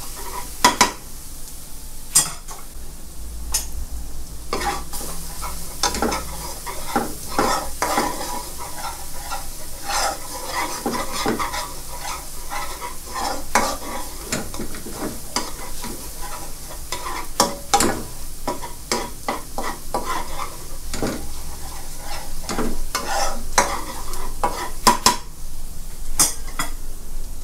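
Metal ladle scraping and knocking against a nonstick wok in irregular strokes as minced shallots and garlic are stir-fried over low heat, with a faint sizzle underneath as they fry dry.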